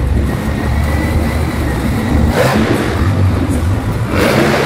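Monster truck engine revving as the truck drives around the arena floor, a heavy, loud rumble that surges louder twice, about halfway through and near the end.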